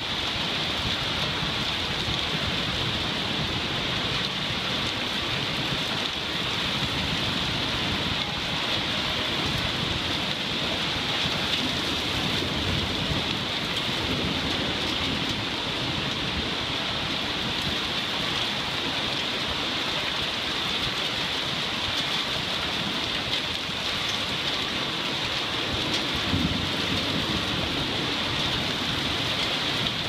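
Heavy thunderstorm rain pouring steadily, with low rumbles of thunder now and then.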